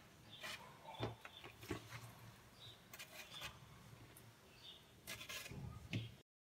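Faint rubbing and light taps as raw sardines are laid and shifted by hand on a metal baking tray strewn with coarse salt. A brief dead silence breaks in near the end.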